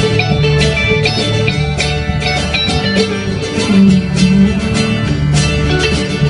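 Live rock band playing an instrumental passage: strummed acoustic guitar with electric guitar, electric bass and drums keeping a steady beat.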